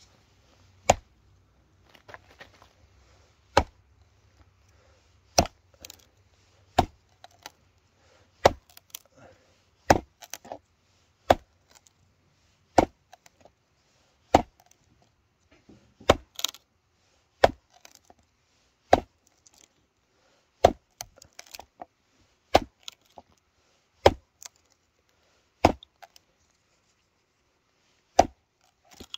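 Odenwolf W machete, a heavy D2-steel chopper, chopping into wood again and again, a sharp strike about every second and a half, with lighter knocks between some of them.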